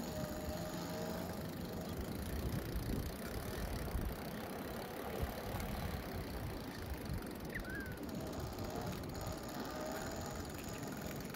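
Bicycle rolling along a paved path, a steady rumble of tyres with wind buffeting the handlebar-mounted microphone. A short high chirp comes about three quarters of the way through.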